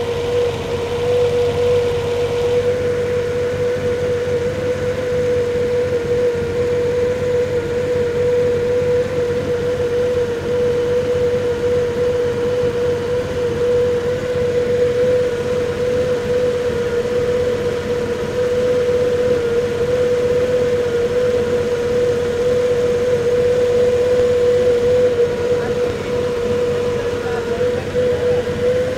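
Lamborghini V12 marine engine idling steadily while its carburettors are adjusted, a steady tone running through the engine sound.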